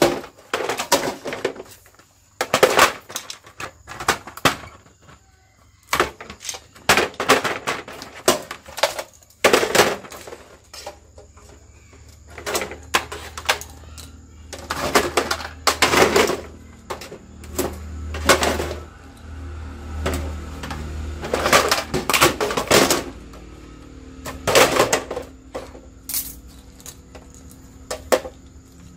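Sheet-metal cases of old receivers and DVD players being shifted, turned over and stacked on a concrete floor: irregular bursts of clattering and knocking. A low hum comes in about halfway through.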